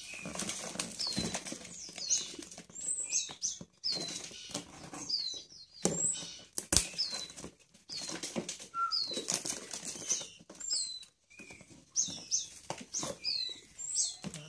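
Packing tape being ripped and peeled off a cardboard box, with crinkling and tearing noises, while small birds give short, high, downward-sweeping chirps over and over.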